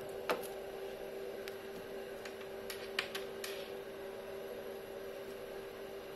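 Steady electrical hum with hiss, and a handful of light clicks and taps in the first three and a half seconds as a hand handles the car stereo head unit and taps its touchscreen.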